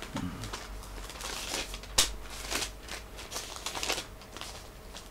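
Rustling and light clicks of hands handling a tablet while looking up a passage, with one sharper click about two seconds in.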